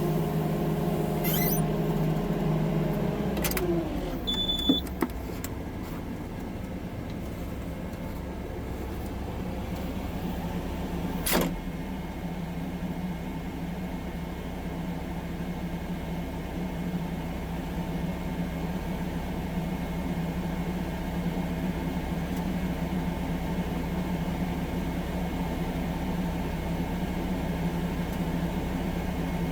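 An engine runs steadily. Its pitch drops about three and a half seconds in, then holds at an even low hum. There are a couple of short knocks early on and one more about eleven seconds in.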